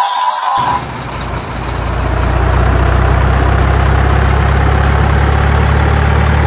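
Music cuts off about half a second in, giving way to a truck engine idling: a steady low rumble that swells over the next second or two and then holds level.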